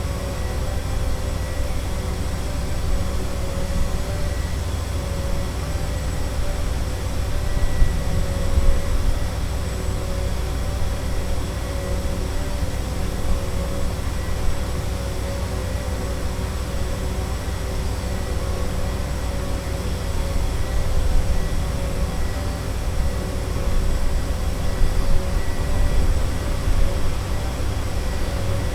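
Busy city street ambience: a steady rumble of traffic and construction machinery with a constant droning hum over it, swelling a little now and then.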